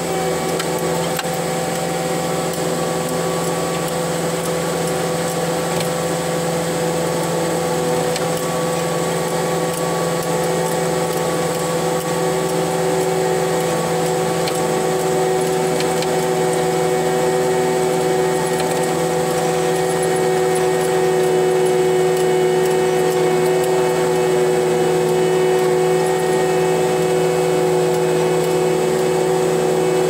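Cat 289D3 skid steer's diesel engine running steadily as the machine pushes dirt with its dozer blade, heard from inside the closed cab, with a steady hum. It grows slightly louder a little past the middle.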